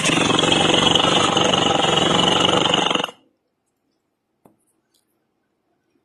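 A recorded tiger growl, a loud rasping rumble that cuts off suddenly about three seconds in, followed by near silence with a single faint click.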